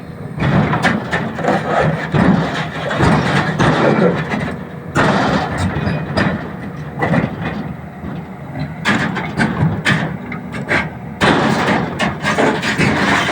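Volvo 380 crawler excavator running while it is driven up onto a lowboy trailer, with irregular clanks and knocks from its steel tracks on the ramp and deck.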